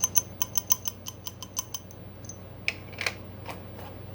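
Steel-cased cartridges clinking against each other as they are handled and sorted: a quick run of light metallic clicks for about two seconds, then a few scattered clinks and scrapes.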